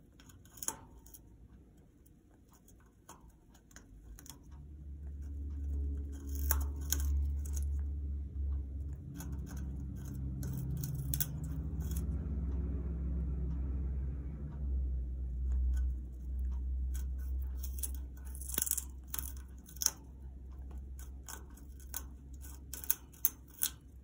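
Congo African grey parrot chewing a wooden perch with her beak: sharp, irregular crackling bites and wood splintering, coming in clusters. A low rumble comes in about four seconds in and fades out near the end.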